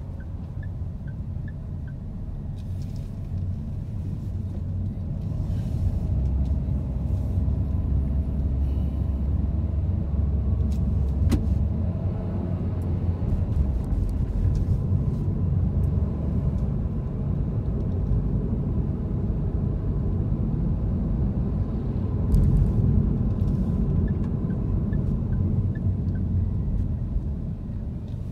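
Car cabin noise while driving: a steady low rumble of engine and road, growing louder a few seconds in as the car gets under way.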